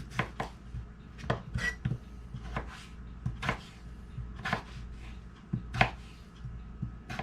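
Knife chopping red potatoes into small chunks: a dozen or so short, sharp strokes at an uneven pace, often two in quick succession.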